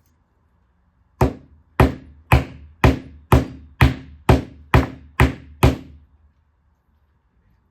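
A hammer tapping a dowel into a pre-drilled hole in a closet panel: ten sharp strikes at about two a second, stopping about six seconds in.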